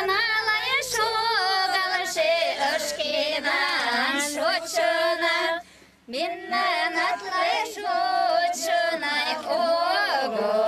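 Mari women singing a welcome song unaccompanied, in held, wavering notes. The singing stops briefly about halfway through, then starts again.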